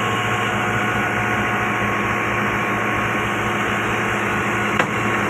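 Old single-cylinder-style black diesel engine running steadily with a low, even thudding beat and a steady hum, driving a stone flour mill. A single sharp click near the end.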